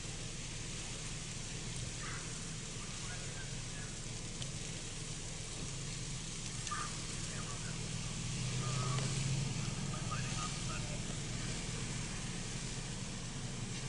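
Brush fire burning through leaf litter and underbrush: a steady hiss with some crackle. A low rumble underneath grows louder about eight seconds in and eases off after ten.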